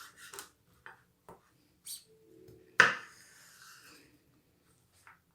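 Knife cutting a zucchini on a cutting board: a few scattered knocks of the blade on the board at uneven spacing, the loudest about three seconds in.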